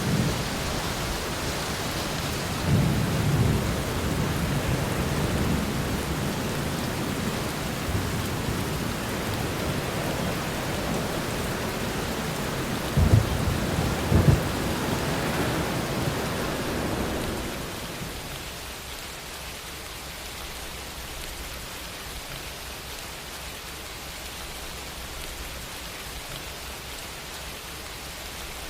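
Steady heavy rain with rumbles of thunder, the loudest about three seconds in and a double crack about thirteen to fourteen seconds in. A little past the middle the thunder dies away and the rain settles to a quieter, even patter.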